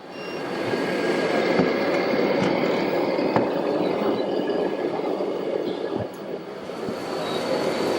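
Radio-controlled scale models' electric motors and gearboxes running, a steady grinding whir with thin high whines, building up over the first second.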